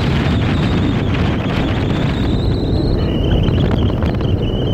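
Wind buffeting the microphone as a loud, steady rumble. From about halfway through, a faint thin high tone wavers above it.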